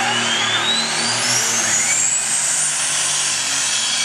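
Heavy super stock pulling tractor's turbocharged diesel engine running flat out under load while pulling the sled, a loud roar topped by a high turbo whine that rises in pitch over the first two seconds and then holds.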